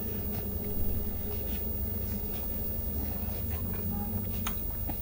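A baby sucking juice from a plastic feeding bottle: faint soft clicks and smacks over a steady low hum.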